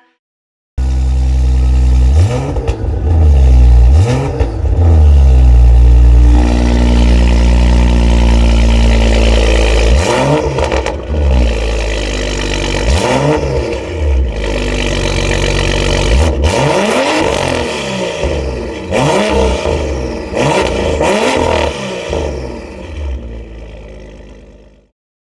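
BMW F87 M2's turbocharged straight-six running through an Armytrix valved exhaust, revved in repeated quick blips whose pitch rises and falls, with a steadier low note between blips. It cuts in about a second in and fades out near the end.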